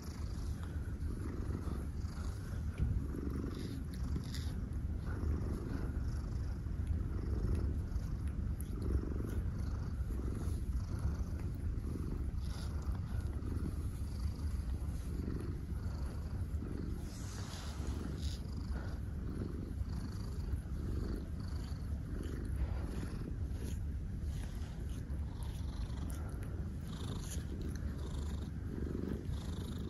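Domestic cat purring steadily, a low rumble that swells and eases about once a second with each breath, with soft, irregular little clicks of a cat's tongue licking fur.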